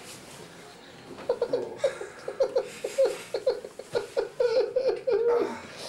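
A person laughing in a quick run of short, even 'ha' bursts, about four or five a second, starting about a second in and going on for about four seconds.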